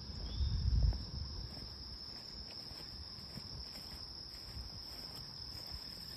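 Steady high-pitched chorus of insects, with a brief low rumble near the start.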